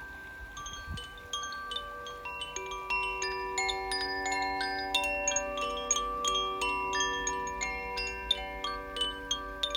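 Koshi chimes in the fire and air element tunings ringing, the clapper striking the tuned rods so that clear, overlapping tones sound. The strikes are sparse at first and build into a dense, louder shimmer after about two and a half seconds, with a soft low thump about a second in.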